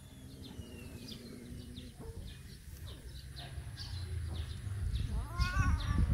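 Small birds chirping repeatedly in the background, with a low rumble that grows louder over the last couple of seconds and a brief rising-and-falling call near the end.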